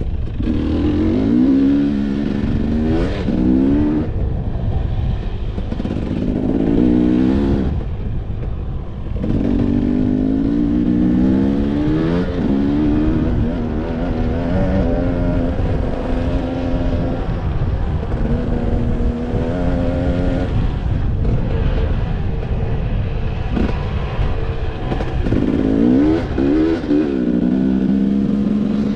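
Motocross bike engine revving hard as it is ridden round a dirt track, its pitch climbing in repeated surges and dropping at each gear change or throttle lift, with a steadier held stretch in the middle. Low rushing wind noise runs underneath.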